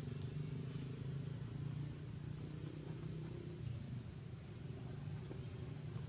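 A steady low mechanical hum, like a motor running, holding the same level throughout, with a few faint high chirps over it.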